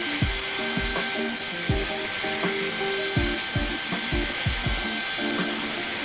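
Band saw cutting through a glued-up wooden blank, the blade running steadily through the wood, with background music and low drum thuds over it.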